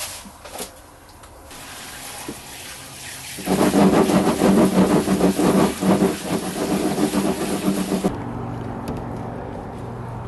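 Water from a handheld shower sprayer splashing into a plastic bucket, filling it and frothing up the cleaning powder in it. The splashing starts abruptly a few seconds in and stops suddenly, giving way to a steady low hum.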